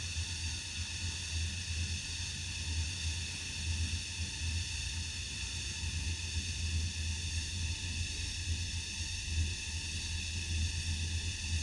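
Cicadas calling in a continuous, steady high-pitched drone, with a fluctuating low rumble underneath.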